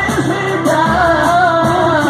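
Live pagode band music: a sustained melody line with singing over a steady percussion beat.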